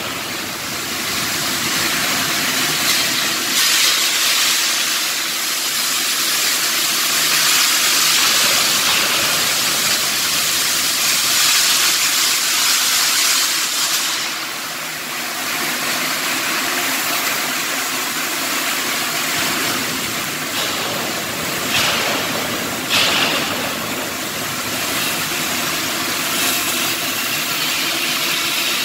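Stick-welding (SMAW) arc sizzling and crackling steadily, with a steady machine hum beneath it.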